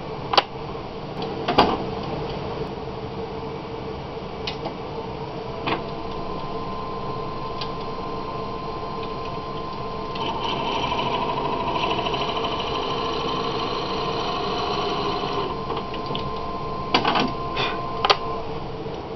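Wood lathe running steadily with a pipe block spinning while a 5/16-inch drill bit in the tailstock chuck bores the tenon hole into the block's end. The cutting noise grows louder and rasping about halfway through for about five seconds, then drops back to the motor's hum; a few sharp knocks come near the start and again near the end.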